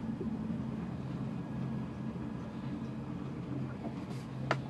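Steady low machinery hum, with a single sharp click near the end.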